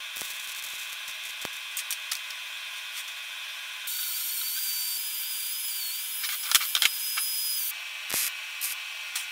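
MIG welding on a steel frame, a steady crackling hiss. About four seconds in, an angle grinder takes over with a high whine as it grinds the steel, for about four seconds. Near the end, short separate bursts of MIG tack welds join bent steel rings.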